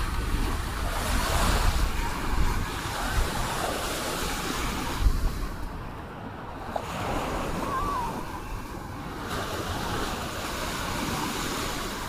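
Small waves breaking and washing up onto a sandy shore, with wind buffeting the microphone.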